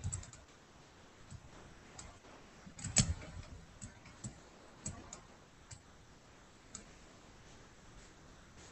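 Faint, irregular clicks of a computer keyboard and mouse being used, one louder knock about three seconds in.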